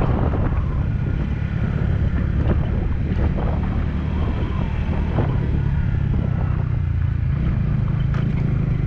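Steady low rumble of a motorcycle engine on the move, with wind buffeting the microphone.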